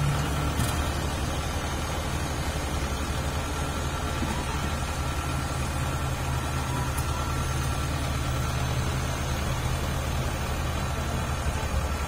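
Kubota DC-60 combine harvester's diesel engine running steadily as the machine travels on its crawler tracks.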